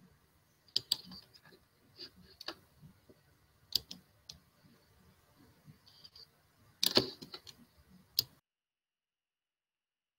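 Scattered clicks of a computer mouse and keyboard, a few isolated ones and then a quick cluster about seven seconds in, before the sound cuts to dead silence a little after eight seconds.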